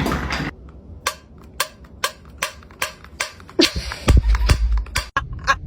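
A run of sharp pops or clicks, about two a second, with a heavy low thump about four seconds in.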